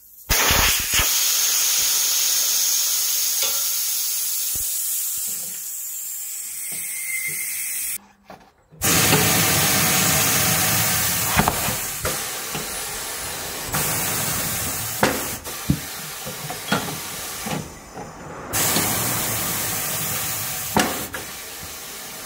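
Pneumatic bead breaker of a tyre-changing machine working on a car tyre: a steady hiss of compressed air, broken twice by short cuts, with scattered sharp clicks and creaks as the blade pushes the bead off the rim.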